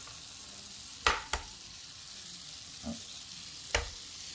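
An egg frying in melted butter in a nonstick copper frying pan: a steady high sizzle, broken by a few sharp pops, two close together about a second in and a loud one near the end.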